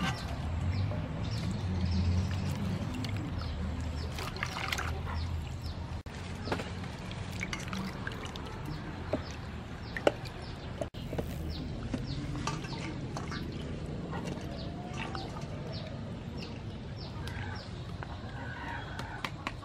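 Water splashing and sloshing in a steel bowl as mangoes, tomatoes and chilies are washed by hand, in many short irregular splashes, with chickens clucking.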